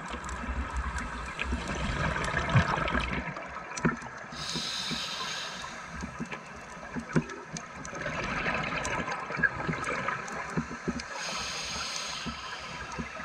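A scuba diver breathing through a regulator underwater: long bubbling exhalations, each followed by a short hissing inhalation, twice over.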